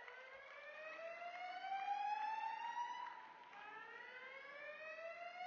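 Building fire alarm sounding its evacuation whoop: a tone that sweeps steadily upward in pitch for about three seconds, then drops and starts over. Two whoops, the second beginning about three and a half seconds in.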